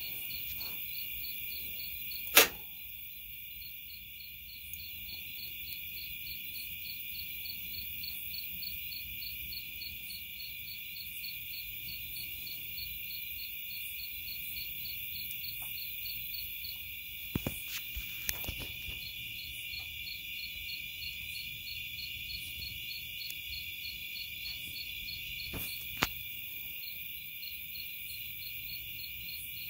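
Night insect chorus: a steady, high, shrill trill made of several overlapping layers, one of them quickly pulsing. A few sharp clicks cut through it: one loud one about two seconds in, a small cluster a little past halfway, and one more near the end.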